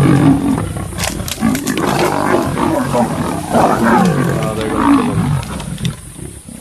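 Lions growling as the pride attacks a leopard: near-continuous deep growls that die down near the end.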